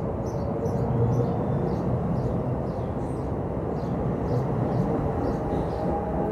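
NJ Transit Multilevel bilevel coaches rolling past at the platform edge and picking up speed: a steady rumble of wheels on rail with faint light clicking about three times a second.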